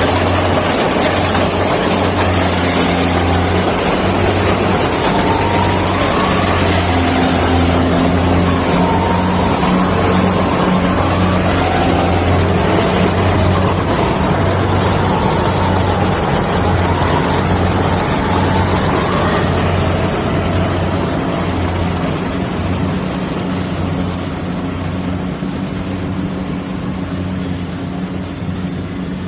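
Tracked rice combine harvester running under load as it cuts and threshes: a steady engine drone with a dense rushing noise over it, easing a little in the last third.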